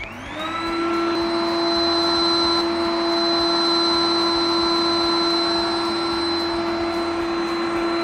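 iRobot Roomba 980 robot vacuum starting its cleaning run: the vacuum motor spins up with a rising whine over the first second, then runs steadily with a high, even whine.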